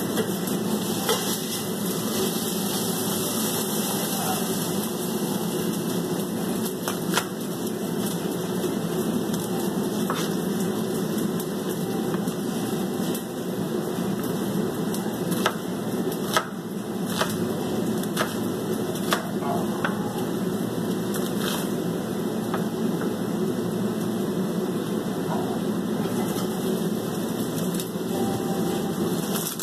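A knife clicking now and then against a plastic cutting board as an onion and garlic are peeled and cut, over a steady rushing hiss.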